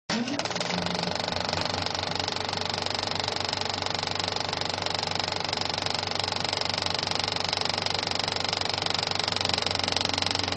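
Film projector running: a rapid, steady mechanical clatter that starts abruptly over a low hum.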